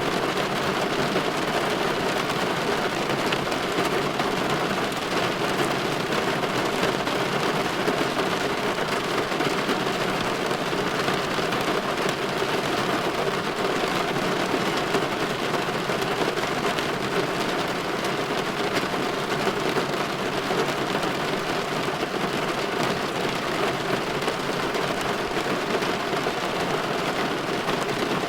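Steady rain falling against a window pane, an even hiss with fine scattered drop ticks and no distinct thunderclap.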